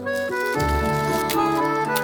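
Instrumental background music with a melody of short sustained notes over a low bass.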